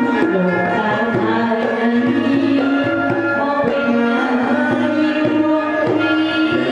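Traditional Khmer wedding music (phleng kar): a sliding, sustained melody over regular hand-drum strokes.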